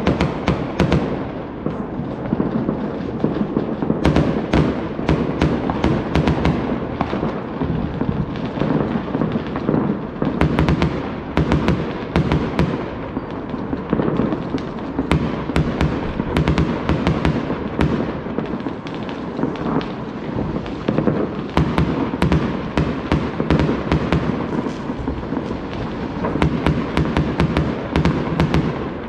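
Fireworks going off in a dense, continuous barrage: many sharp bangs and cracks in quick succession over a steady rumble.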